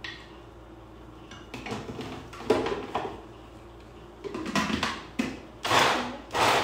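Dishes and kitchen utensils being handled: a run of irregular clatters and scrapes, louder near the end.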